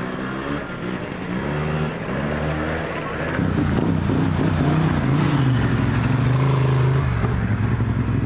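Motorcycle engines running at low revs, pitch rising and falling. From about three seconds in it grows louder and steadier as a race bike rolls slowly past alongside a scooter.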